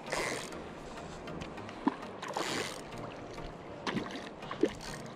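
Hooked black drum splashing at the water's surface while being played on a spinning rod: two short splashes, one near the start and one about halfway through, with a few light knocks in between over low water noise.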